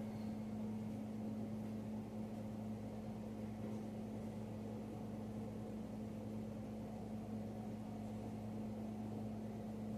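A steady low machine hum with a constant tone, unchanging throughout.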